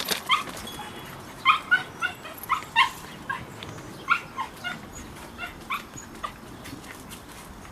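A small dog yipping and barking in short, high-pitched calls, about a dozen irregularly spaced over the first six seconds, then falling quiet.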